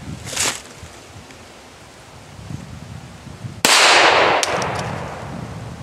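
A single shot from a .25 ACP Jennings J-25 pocket pistol about two-thirds of the way in: a sharp, loud crack whose echo dies away over about two seconds, with a couple of light clicks just after it. A short, faint hiss comes about half a second in.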